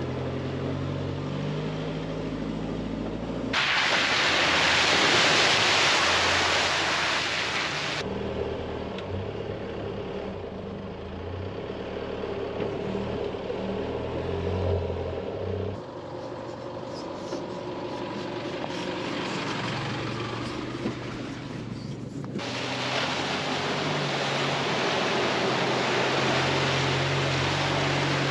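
Four-wheel drives running along a muddy dirt track, engine hum with tyre and road noise, in several stretches that change abruptly. Two spells of loud rushing hiss, the later one near the end as a 4WD pushes through a flooded section of track and throws up water.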